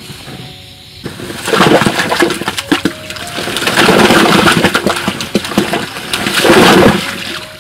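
A sackful of round fruits emptied into a concrete tank of water: splashing and sloshing with many small knocks and plops as the fruits drop in. It comes in three loud surges, starting about a second in and easing off shortly before the end.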